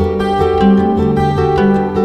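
Background music: a melody of short, changing notes over a steady low beat.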